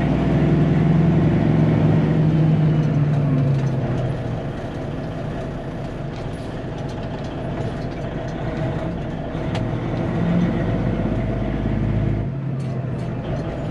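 Kenworth T800 semi truck's diesel engine heard from inside the cab while driving. The engine note falls off about four seconds in and again near the end, as with gear changes.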